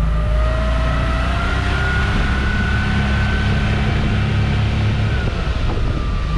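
Small boat's outboard motor running under way, steady and loud, its whine climbing slowly in pitch over the first few seconds and dipping slightly near the end.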